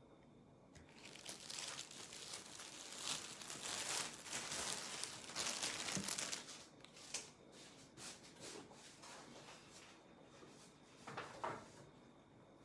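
Plastic crinkling and rustling as it is handled, dense for the first half, then giving way to scattered small clicks and a short rustle near the end.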